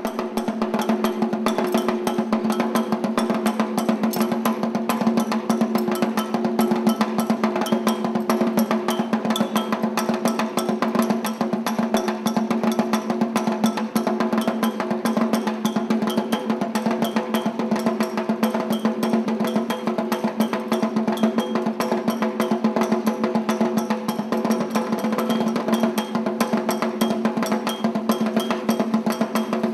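Drum-led percussion music: fast, steady drum strokes over a held low tone.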